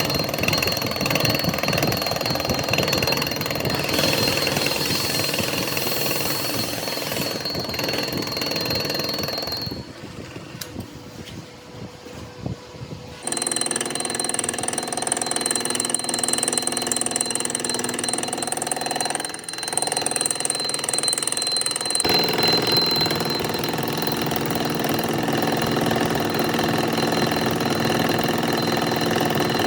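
Workshop machinery running steadily with a high whine. The sound changes abruptly a few times, with a quieter stretch about ten seconds in.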